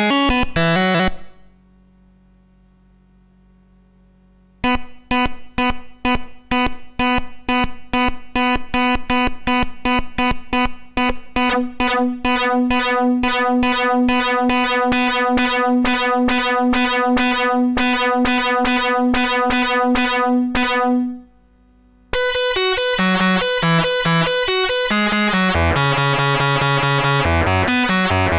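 Home-built analogue synthesizer playing. A short run of notes stops about a second in, followed by a brief pause with only a faint hum. Then one note is retriggered over and over for about sixteen seconds, the repeats coming faster as it goes, and after a short break a fast sequence of changing notes begins.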